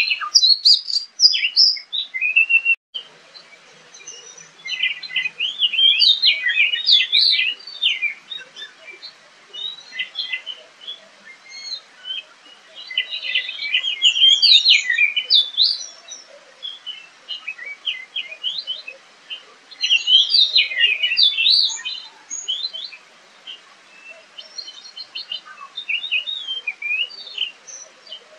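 Oriental magpie-robin (kacer) singing: bursts of quick, varied, high whistles and chatters a few seconds long, separated by short pauses.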